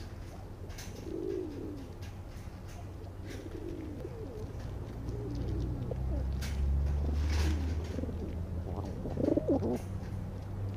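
Feral pigeons cooing in short, low rolling calls, several times and loudest about nine seconds in, with a few faint clicks. A low steady rumble runs beneath and swells midway.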